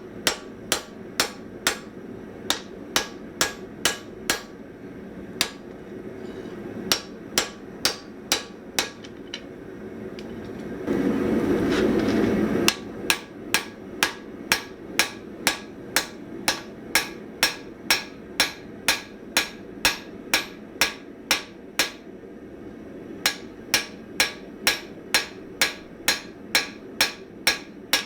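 Hand hammer striking hot spring steel on an anvil in runs of about two blows a second, each blow ringing, with short pauses between runs. About eleven seconds in, a loud rushing noise lasts close to two seconds.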